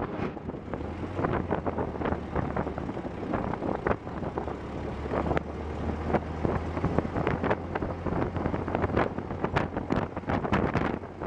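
1910 Paterson veteran car driving along the road: a steady low engine hum under wind rushing over the microphone, with frequent sharp clicks and knocks.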